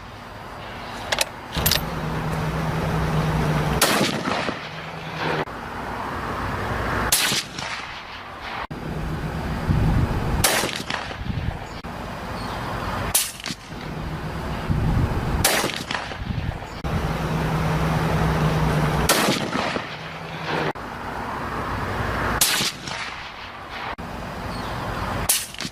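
A gun firing single shots every two to four seconds, about ten in all, with supersonic and subsonic ammunition, both suppressed and unsuppressed. A steady low background rumble runs underneath.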